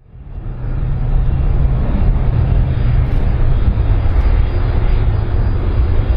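Jet engine noise from an Airbus A310-304 airliner on the runway: a steady, loud rumble, deepest in the low end, fading in over the first second.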